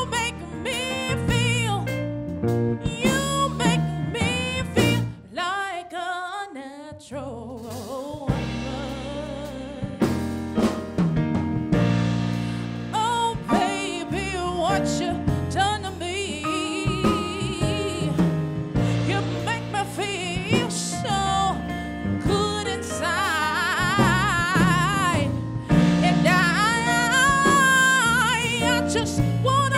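A woman singing R&B/gospel-style lead vocals with a live band of drum kit and electric bass. The band drops back briefly about five seconds in, and near the end she holds high notes with a wide vibrato.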